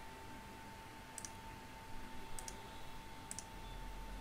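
Computer mouse clicking: three pairs of quick clicks, about a second apart.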